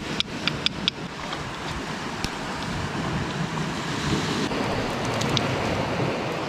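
Sea waves washing over shore rocks: an even rush of water that swells over several seconds and then eases. A few sharp clicks sound in the first second.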